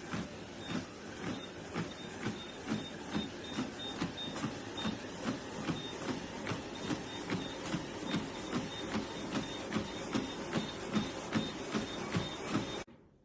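Footsteps landing on a walking-pad treadmill's moving belt, an even rhythm of about two and a half steps a second over a steady running noise from the machine. The sound cuts off suddenly near the end.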